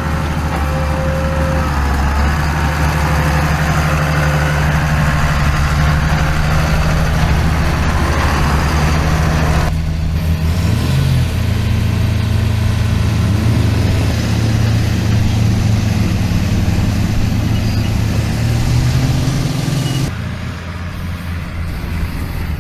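Heavy vehicle engine running steadily at a low, even note. The sound changes abruptly about ten seconds in and again about twenty seconds in, and the engine note rises slightly around the middle.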